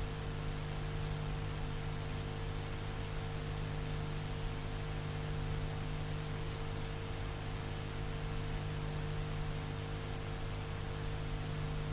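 Steady electrical hum with hiss, unchanging throughout: the background noise of an open voice-communications line between range call-outs.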